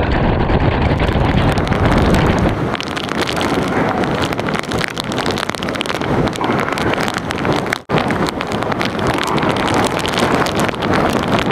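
Storm wind from a hurricane's outer bands buffeting the microphone over heavy surf breaking on the beach. A deep rumble eases off about two and a half seconds in, and the sound drops out for an instant near eight seconds.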